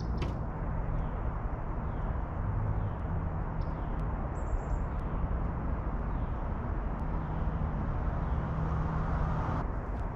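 Steady outdoor background noise with a low hum, and faint short bird chirps, the clearest about four and a half seconds in.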